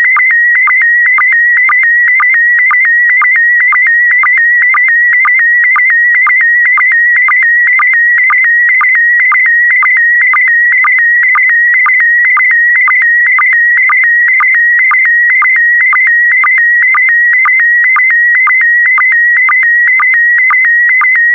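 Slow-scan TV signal in PD120 mode sending a picture line by line. A steady, warbling audio tone between about 1.5 and 2.3 kHz shifts pitch with image brightness and is cut by short, evenly spaced sync pulses that dip lower in pitch.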